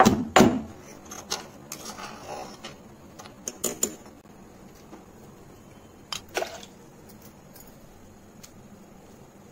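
Stone pestle pounding garlic and curry leaves in a stone mortar, with a loud thud about half a second in. A metal spoon then scrapes and clinks against the mortar's stone sides, and a single clank follows about six seconds in.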